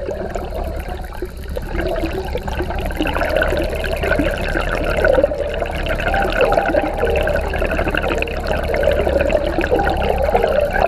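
Water rushing and bubbling around a submerged camera: a steady, busy churning noise with a low hum under it.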